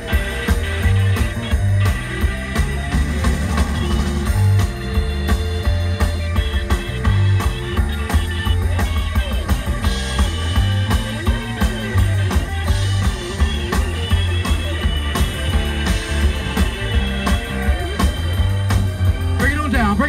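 A live band playing an instrumental groove: drum kit keeping a steady beat under a heavy bass line, with guitar on top.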